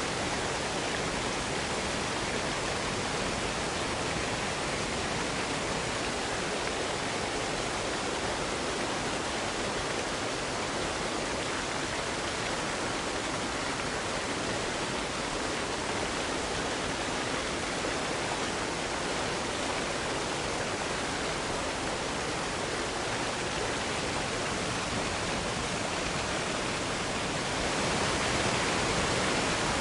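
Waterfall: a steady rush of cascading water, an even hiss with no distinct splashes, swelling slightly near the end.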